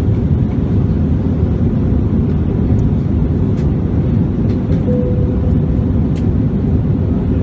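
Airbus A321-200 airliner cabin in flight: a loud, steady rumble of the jet engines and airflow, heard from a window seat over the wing. A short, faint whine sounds about five seconds in.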